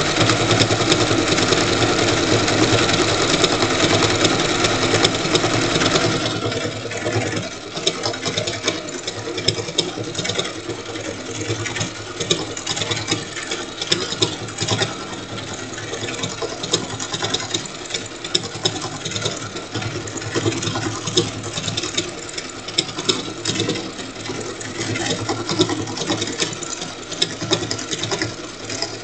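Sewing machine running and stitching a decorative stitch through quilt fabric. It is louder and denser for about the first six seconds, then runs on more quietly with a fast stream of needle ticks.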